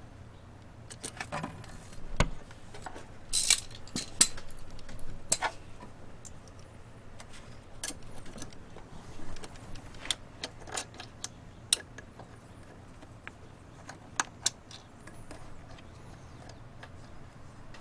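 Small metal parts clicking and clinking at irregular intervals as a clutch master cylinder is fitted onto its bracket studs and its nuts and washers are handled, with one duller knock about two seconds in.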